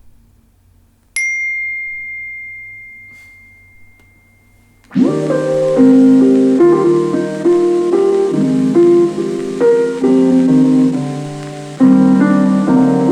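A single high ding about a second in, fading away slowly. About five seconds in, piano music starts playing through a homemade Bluetooth speaker with two 4-inch Dayton Audio woofers and a Dayton Audio tweeter, picked up close to the speaker.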